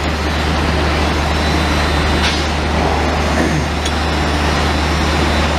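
A machine running steadily with a strong low hum and a constant noisy drone, with a couple of short clicks about two and four seconds in.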